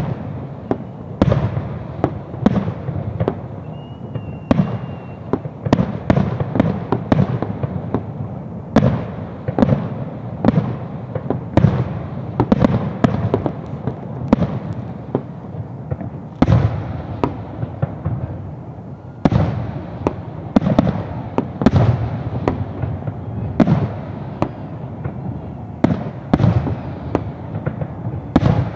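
Aerial fireworks display: shells bursting in a rapid, uneven series of sharp bangs, often one or two a second, each followed by a low rumbling echo.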